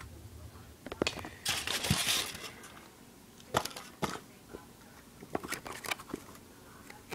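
Box packaging being handled: crinkling and rustling about a second and a half in, then scattered sharp clicks and knocks as the diecast model is worked out of its box.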